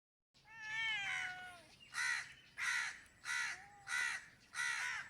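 Crows cawing: one longer, drawn-out call falling in pitch, then a regular series of five short caws about two-thirds of a second apart.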